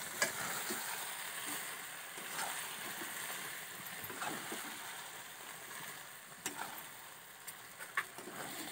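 Chicken kasa sizzling as it fries down in a metal kadai. A wooden spatula stirs it, scraping and knocking against the pan now and then. The sizzle gets quieter toward the end.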